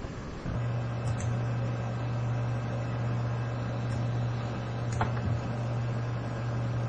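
A steady low electrical hum, with two faint clicks, about a second in and about five seconds in.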